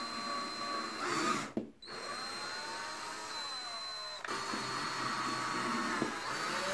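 Electric drill running as it bores a hole through a foam box. It stops briefly about a second and a half in, starts again, changes pitch around four seconds in, and stops at the end.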